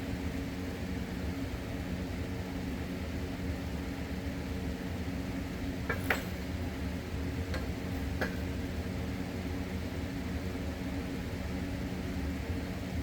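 Steady mechanical hum from running shop equipment, with a few light clinks of parts being handled about six, seven and a half and eight seconds in; the first clink is the loudest.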